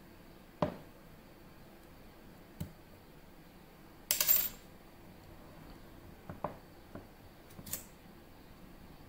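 Small hard objects being handled: a few light clicks and knocks, and a brief clattering scrape about four seconds in, the loudest sound.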